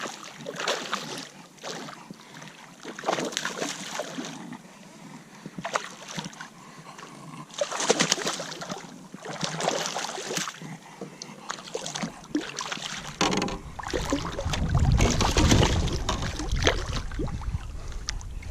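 Water splashing and knocking around a fishing kayak in irregular bursts every second or two, with a low rumble joining partway through.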